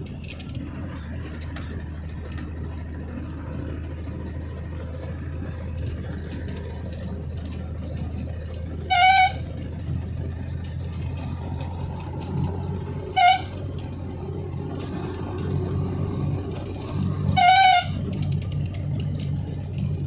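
Vehicle engine running steadily while driving, with a horn sounded three times: two short toots about four seconds apart, then a longer blast near the end.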